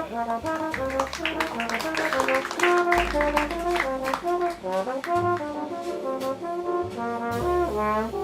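Small jazz group playing: a brass horn carries a melodic line of moving notes over bass notes and drums with cymbals.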